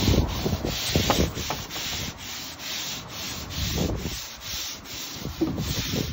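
Long-handled scrub brushes scrubbing wet Dekorator composite decking in quick back-and-forth strokes, about three strokes a second.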